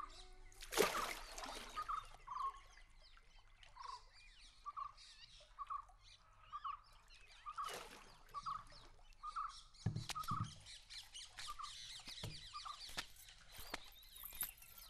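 Birds calling: one bird repeats a short call about twice a second, with fainter chirping from others higher up. A few brief knocks or splashes, the loudest about a second in.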